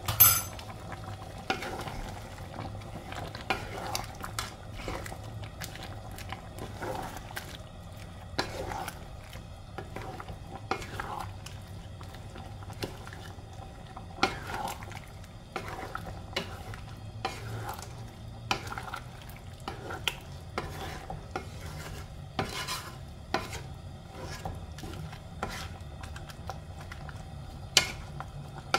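Wooden spatula stirring a simmering coconut-milk stew of squash, string beans and shrimp in a nonstick pan, with irregular light knocks and scrapes against the pan. There is a sharper knock right at the start.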